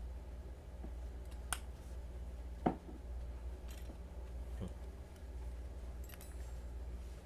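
A balisong (butterfly knife) being handled, giving a few scattered light metallic clicks. The loudest click comes about two and a half seconds in, over a low steady hum.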